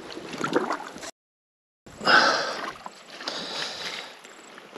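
Water splashing and sloshing as a foot breaks through grass tussocks into a water-filled hole at a boggy creek edge, with grass brushing past. About a second in the sound drops out completely for under a second, then a louder splash and swish comes back and fades.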